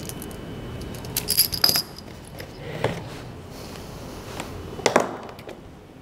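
Small metal objects clinking: a quick run of light metallic jingles about a second in, then single clicks near three and five seconds, over a steady low hiss.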